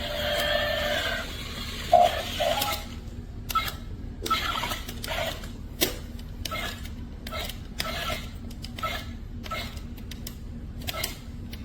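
Toy robot's small speaker playing electronic sounds: a steady tone for about three seconds, then a rhythmic run of short clicks and beeps about two a second.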